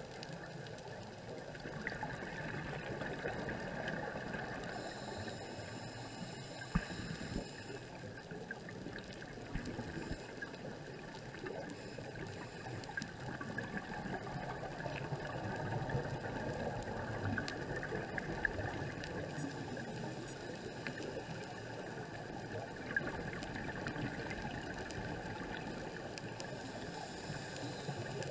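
Muffled underwater ambient noise during a scuba dive: a steady hiss and rumble with a few faint clicks.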